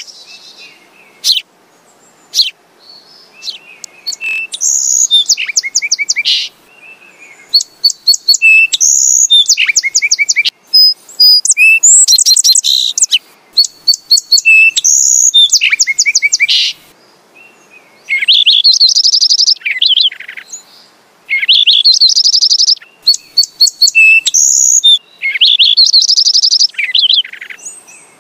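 Sparrows chirping and singing: repeated phrases of fast, high trills and chirps, some with falling buzzy notes, separated by short pauses.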